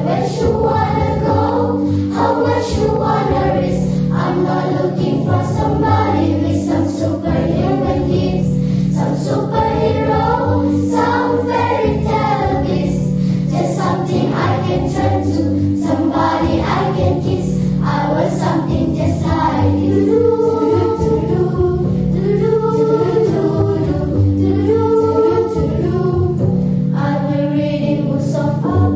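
Children's choir of primary-school girls singing a multi-part arrangement, with held low chords that change every couple of seconds beneath the melody.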